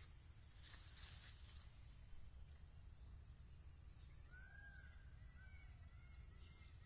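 Faint field ambience: low wind rumble on the microphone and a steady high hiss, with a brief rustle about a second in. About four seconds in, a bird gives a few short, arching calls.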